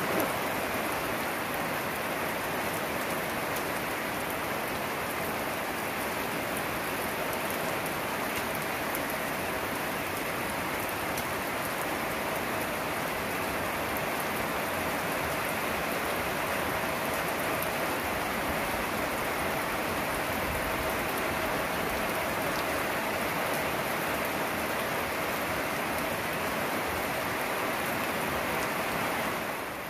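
Steady rain falling, an even, unbroken hiss, with a faint steady hum underneath.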